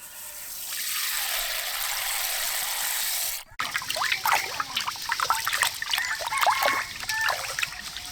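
Water pouring or running in a steady hiss, which breaks off abruptly; then water splashing and trickling in irregular bubbly splashes, as when something is handled or washed in it.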